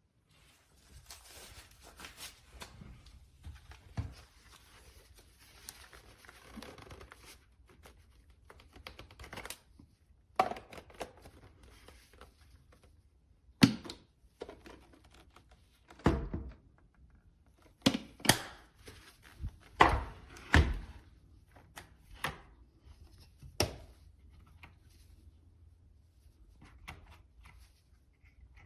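Irregular thunks, clicks and rustling of things being handled, with several louder knocks spread through.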